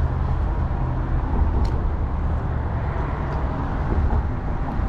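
Steady low rumble of road traffic on the bridge, with a faint click about a second and a half in.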